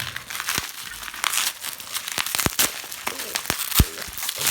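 Plastic packaging crinkling and rustling as a parcel is opened by hand, with several sharp clicks and crackles through it.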